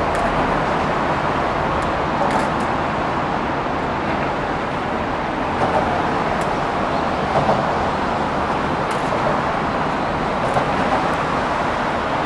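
Steady city traffic noise from vehicles running along an elevated highway and the streets below: an even, continuous rush with a few faint high ticks scattered through it.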